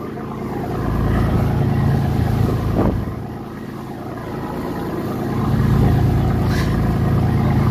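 Tourist boat's engine running steadily with a low hum, growing louder about six seconds in.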